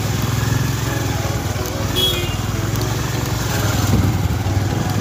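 Motorcycle engine running steadily while riding along a rough dirt road.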